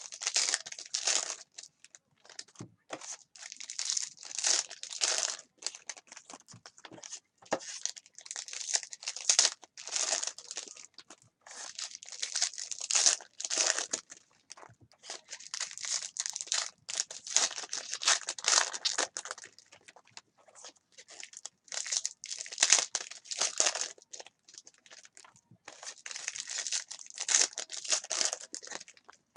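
Foil card-pack wrappers crinkling and tearing as packs of football trading cards are ripped open and handled, in repeated rustling bursts with short pauses between.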